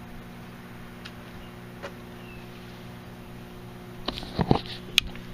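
Microwave oven running with a steady high-voltage hum from its transformer. A few sharp knocks come about four seconds in, then a single sharp click.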